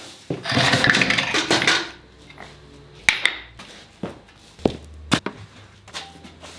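Objects being handled and moved in a metal workshop: a rustling, scraping stretch lasting about a second and a half, then several separate sharp knocks and clunks.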